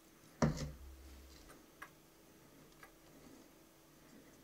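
Quiet handling noises during cleanup of the resoldered circuit board with a cotton swab and isopropyl alcohol: a soft knock about half a second in, then a few light, scattered clicks.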